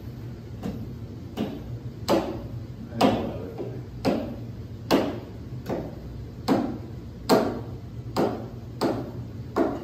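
Sharp draw knife paring thin shavings off a wooden axe handle, light pulled strokes. About a dozen strokes a little under a second apart, each starting sharply and trailing off in a short scrape. A steady low hum runs underneath.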